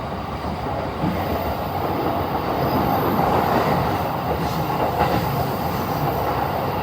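Running noise inside an E233-series commuter car at speed: a steady rumble of wheels on rail with a few faint knocks at rail joints and a faint high wheel squeal about three seconds in.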